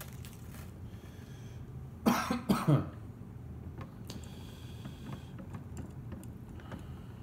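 A man coughs and clears his throat in a short burst about two seconds in. Otherwise only faint, scattered clicks of small screws and washers being handled at the telescope's mounting ring.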